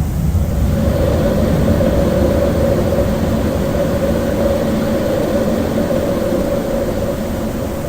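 Cockpit noise of a Boeing 737-800 in its initial climb just after lift-off: a steady rush of engine and airflow noise. About half a second in, a steady hum comes in and holds.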